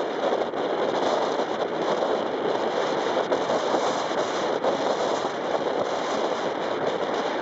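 Blizzard wind driving heavy snow: a steady, dense crackling hiss that swells and eases slightly without stopping.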